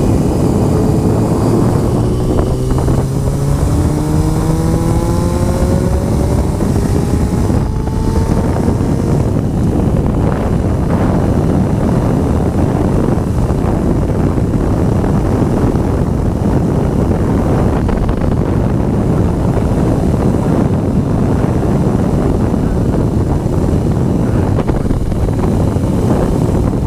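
Honda CBR motorcycle engine pulling away, its pitch climbing over the first several seconds with a brief break about eight seconds in, then steady wind noise buffeting the microphone at speed.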